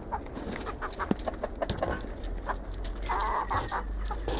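A flock of chickens, hens and roosters, clucking close up, with a louder burst of calls about three seconds in.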